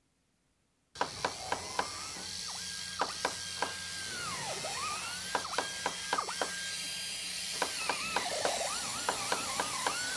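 Hot glue gun trigger clicking repeatedly as the glue stick is fed, an irregular run of sharp clicks over a steady hum and sliding electronic tones. It starts suddenly about a second in.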